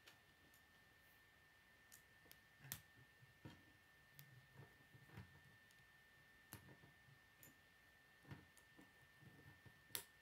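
Faint, irregular clicks of plastic K'nex rods being pushed and snapped into K'nex connectors, about a dozen, with two louder snaps near the middle and near the end, over a faint steady high whine.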